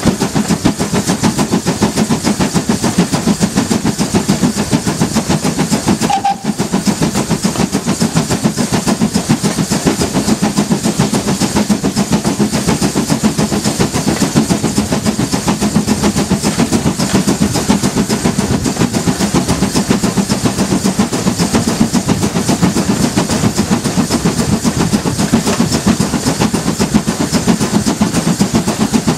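GWR 52xx-class 2-8-0 tank locomotive running under steam, heard close up from its cab side: a loud, steady, quick beat of exhaust and running gear, with a brief break about six seconds in.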